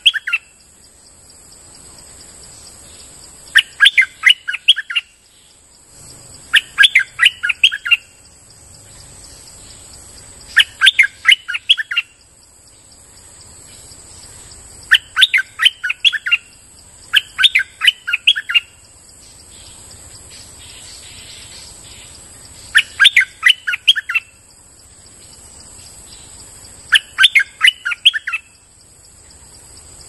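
Stripe-throated bulbul singing: seven short phrases, each a quick run of five or six sharp notes, repeated every few seconds. Underneath runs a steady high insect drone.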